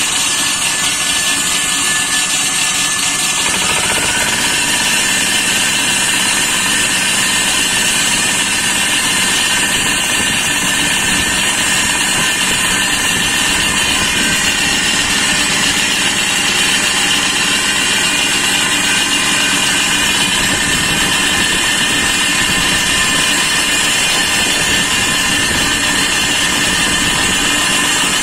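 Engine-driven pipe-cutting saw running steadily as its blade cuts through a reinforced concrete (RCC) pipe. The sound grows fuller about three and a half seconds in, then holds steady.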